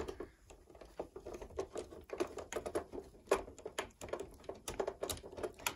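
Irregular small clicks and ticks of a hand screwdriver working loose the screw that holds the lamp unit in an NEC M300X projector: the metal tip catching in the screw head, with hand and tool knocking on the plastic lamp bay.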